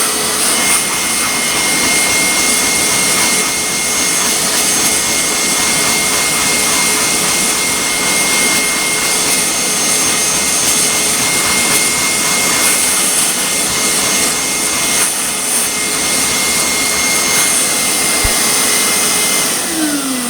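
Hoover carpet steam vac's motor running loud and steady with a high whine while the upholstery tool works on the carpet; near the end the whine falls in pitch as the motor winds down.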